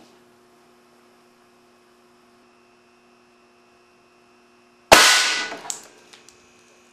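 Solenoid-valve compressed-air cannon, built on a fire-extinguisher tank, firing a light stick at 300 psi: one sudden loud blast about five seconds in that dies away over about a second, followed by a smaller sharp click. A steady electrical hum sits under it.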